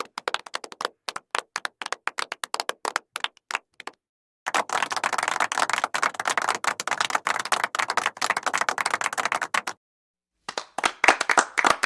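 Hand clapping in three separate takes: first a few people clapping in scattered, separate claps, then after a short break about five seconds of dense applause from a group, then after another break a new round of loud clapping starting near the end.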